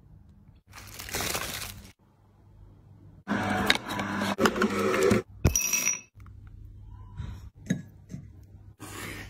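Kitchen handling sounds in short separate bursts: scraping, clinking and crunching noise. The loudest and busiest burst, full of sharp clicks, lasts a couple of seconds in the middle, with smaller clicks after it.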